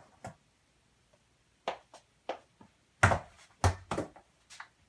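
Soccer ball slapped and struck by a player's foot and leg, an irregular series of about seven thuds with some room echo, the loudest about three seconds in.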